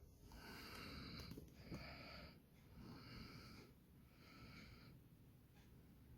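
Faint wheezy breathing: four breaths in a row, each about a second long, growing quieter.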